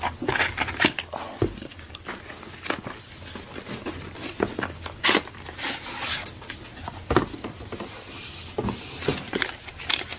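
Cardboard packaging being handled: irregular scrapes, rustles and light knocks as a charger and its cardboard holder are pulled out of a box.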